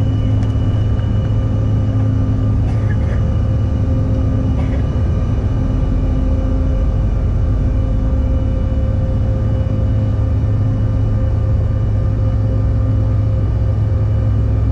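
Steady cabin noise of a Bombardier CRJ-1000 regional jet in flight: a constant low roar from its rear-mounted turbofan engines and the airflow, with several steady whining tones over it.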